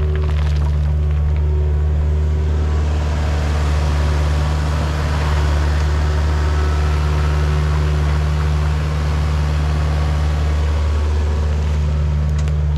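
Heavy machine engine running steadily at constant speed under work, with a strong low drone and a hissing, rushing layer above it.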